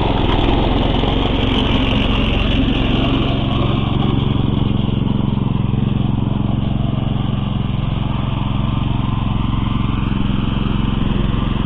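Lifan 168F single-cylinder four-stroke petrol engine on an Oka walk-behind tractor running steadily under load as it pulls a trailer across grass in second gear, a constant drone.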